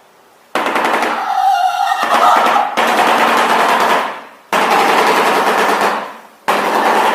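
Shoebill stork clattering its bill: a loud, rapid rattle much like machine-gun fire, in three long bursts, the first starting about half a second in and the last beginning near the end.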